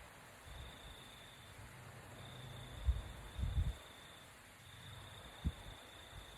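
Faint, steady high trill of a night insect, coming in stretches of one to two seconds, with a few dull low thumps around the middle.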